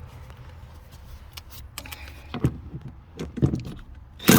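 A hand wrench working a 12 mm seat-mounting bolt, with a few sharp metallic clicks and a louder metal clatter near the end.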